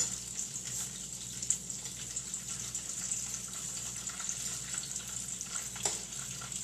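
Egg-battered chayote slices frying in oil in a large skillet: a steady, soft sizzle. A fork clicks sharply against the pan at the very start, with a couple of lighter taps later.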